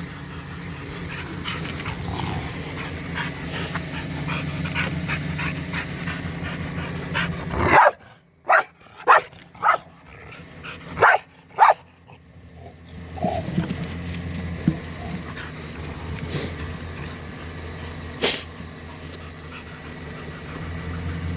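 A dog barking: a quick run of about six barks a little past a third of the way in. A steady low hum runs under the rest.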